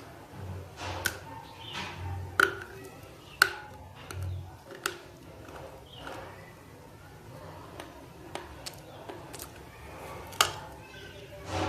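Chunks of raw multani mitti (Fuller's earth clay) being bitten and crunched close to the microphone: irregular sharp cracks with softer chewing between.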